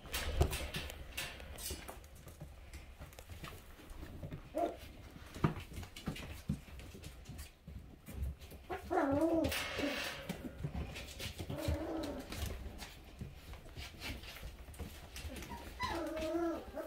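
Young puppies whining in short wavering calls, in three bouts with the last near the end, amid scattered soft knocks and clicks from their play.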